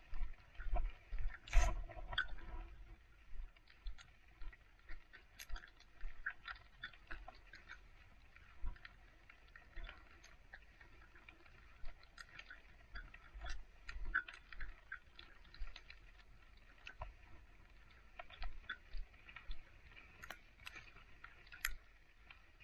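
Footsteps crunching on packed snow at a steady walking pace, with one louder crunch about two seconds in.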